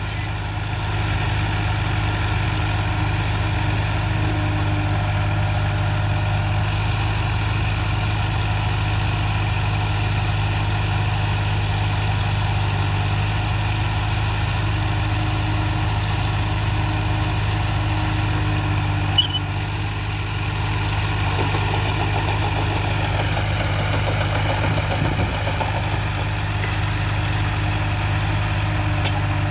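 Heavy construction machine's diesel engine running steadily at idle, a low even hum, with one brief click about 19 seconds in.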